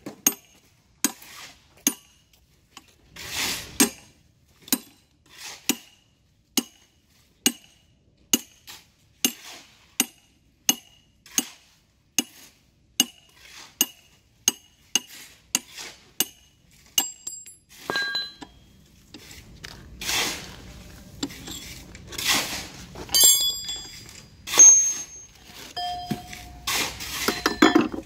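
Hammer blows on the steel pins and body of a Soosan hydraulic rock breaker, a steady series of sharp metallic strikes with a short ring, about one a second and quickening. Later come irregular metal clanks, scraping and handling of the parts.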